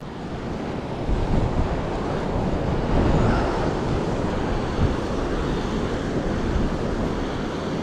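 Ocean swell surging and breaking against a rock ledge, with wind buffeting the microphone; the rush swells and eases a little as the surges come in.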